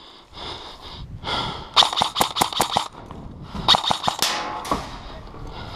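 Airsoft gun firing two quick strings of shots, one about two seconds in and one about four seconds in, each a handful of sharp cracks.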